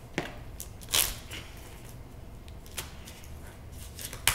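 Scattered short scratches and crinkles of plastic shrink wrap being picked at with fingers on a plastic Lego storage bucket, the loudest about a second in.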